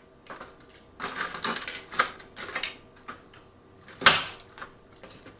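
Fingers rummaging through crispy fried chicken in a clear plastic clamshell container: irregular crackling of the breading and clicks of the thin plastic, with one sharp crack about four seconds in.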